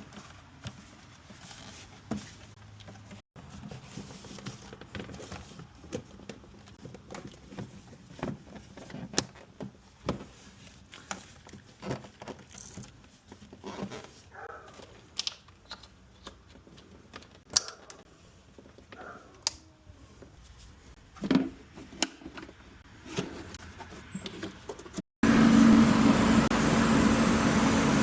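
Hand tools and metal engine parts clinking and knocking irregularly during reassembly. After a sudden cut, the engine is running with a loud steady hum and fan noise.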